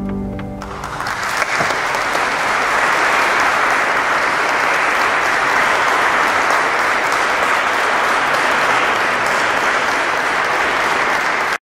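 The organ's final chord dies away, and about a second in the audience breaks into steady applause, which cuts off suddenly near the end.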